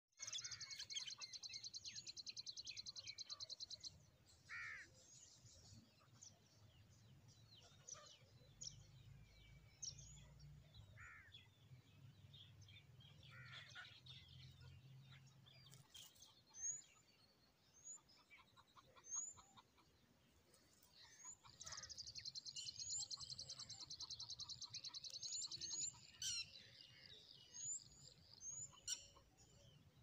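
Faint outdoor birdsong: scattered short chirps and quick rising high whistled notes. A fast, high buzzing trill runs through the first four seconds and comes back for about four seconds past the middle.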